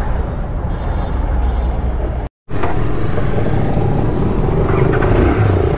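Royal Enfield Continental GT 650 motorcycle engine running as the bike pulls away, mixed with passing road traffic. The sound cuts out completely for a moment a little after two seconds in.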